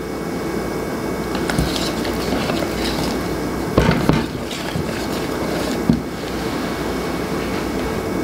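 Wire whisk beating thick spaetzle batter in a bowl: a steady stirring noise broken by a few sharp knocks of the whisk against the bowl.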